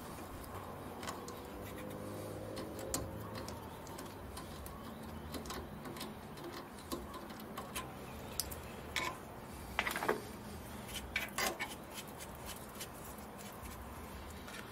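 Small metallic clicks and clinks of hand tools as an M5 tap and tap wrench are worked and handled at a metal lathe. The clicks are scattered, with a cluster of louder ones about ten to eleven seconds in, over a faint low steady hum.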